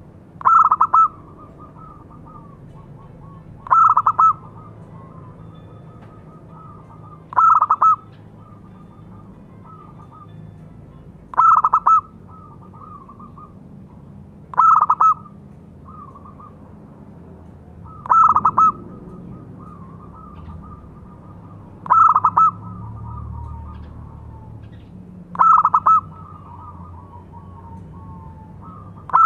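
Zebra dove (local perkutut) singing its cooing call: a short, loud phrase of rolling coos repeated about every three and a half seconds, with softer trailing coos between the phrases.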